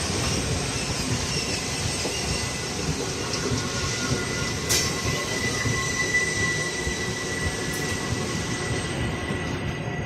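Passenger train rolling past on the rails with a steady rumble and a thin, high wheel squeal that is strongest in the middle. There is one sharp click about halfway through.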